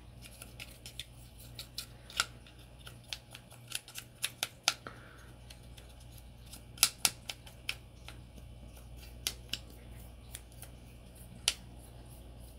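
Irregular small clicks and scratches of a cotton swab being worked into the polymer frame and steel slide rails of a stripped Glock 19X pistol, along with the light clicks of the frame turning in the hands.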